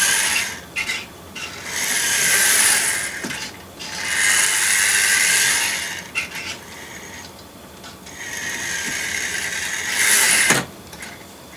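A 00 gauge 0-6-0 pannier tank model locomotive running back and forth on test track. Its small electric motor and gears whir in four runs of about two seconds each, with clicks and short pauses between as it stops and reverses. The last run cuts off with a knock near the end. The motor is freshly repaired and running better the more it is run.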